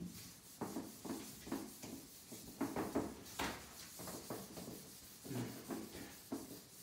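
A whiteboard being wiped clean of marker writing, heard as quick back-and-forth rubbing strokes at about two or three a second.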